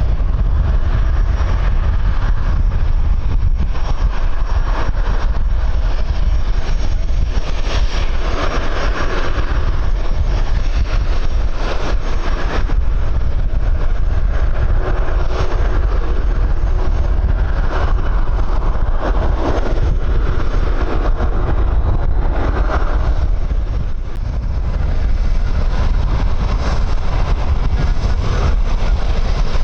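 Strong wind buffeting the microphone over a steady jet-engine rumble from an airliner, with a brief lull in the wind about three-quarters of the way through.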